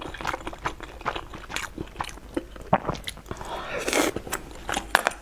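Close-miked eating with chopsticks: wet chewing and lip-smacking clicks, with a longer slurp about four seconds in as more sauce-soaked food goes into the mouth.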